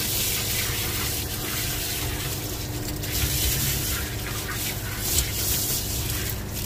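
Water spraying steadily from a pump-fed shower nozzle onto a dog's wet coat in a grooming tub, with a steady hum from the pump underneath.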